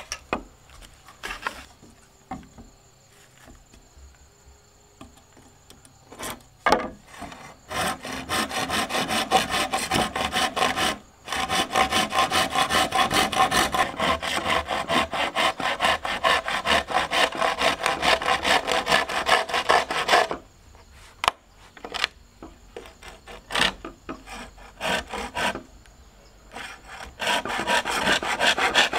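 Hand saw cutting through green bamboo in quick back-and-forth strokes, in two spells: a long run starting about a quarter of the way in and stopping about two-thirds through, and another near the end. Scattered knocks fall before and between the spells.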